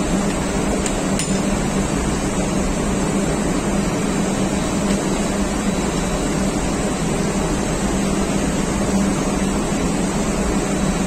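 Steady drone of running engine-room machinery: a constant rushing noise over a low hum.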